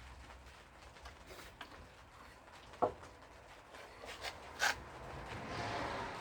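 Hand-handling noises as the aluminium hinge jig is set up on the door: a few sharp clicks and knocks, the loudest about three seconds in, then a rubbing scrape building near the end.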